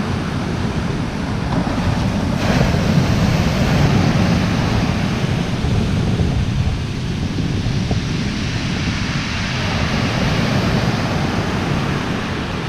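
Small waves breaking and washing up a shingle beach: a steady rush of surf that swells twice, with wind rumbling on the microphone.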